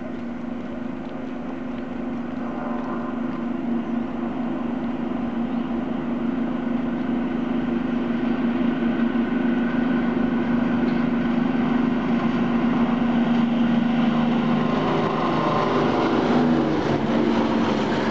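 Convoy of preserved diesel locomotives running light (Class 55 Deltic, Class 52 Western and Class 42 Warship), approaching with a steady engine drone that grows louder. Near the end the maroon lead locomotive passes close by, adding wheel and rail noise.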